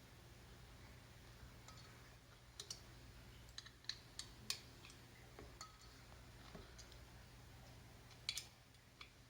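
Faint, scattered clicks and light metal clinks of an Allen key tightening the handlebar clamp bolt on a balance bike, over a low steady hum.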